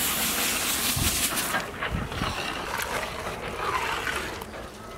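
Granulated brown sugar pouring from a bowl into a pot of hot pomegranate juice: a rushing, hissing pour for about the first second and a half. Scattered light knocks follow as a ladle stirs the pot.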